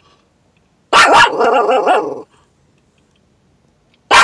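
Small dog barking hard in a quick run of barks about a second in, then one more sharp bark near the end. These are warning barks at another dog outside that came too close.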